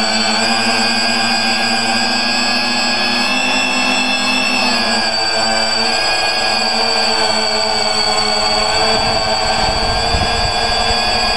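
X580 quadcopter's electric motors and propellers whining steadily, heard close up from a camera on the frame; the pitch drops slightly about five seconds in, and a low rumble joins in the second half.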